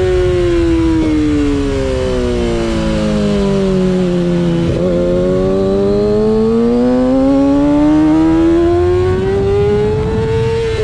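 Stock Kawasaki ZX-6R's inline-four engine at speed on a race track. The engine note falls for about five seconds as the bike slows, then rises steadily for about six seconds as the rider accelerates.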